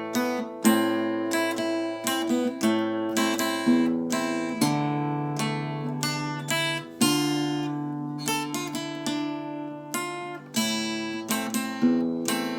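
Solo acoustic guitar playing an enka melody: single plucked notes and strummed chords, each starting sharply and ringing out, with two longer held chords in the middle.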